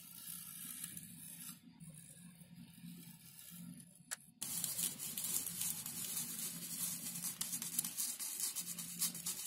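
A compass pen scratching faintly as it draws a circle on 5 mm XPS foam board; about four seconds in, a snap-off utility knife starts cutting through the foam, a louder dense run of small crackles and scrapes.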